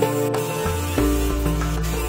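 Background music with sustained notes changing over a low bass line.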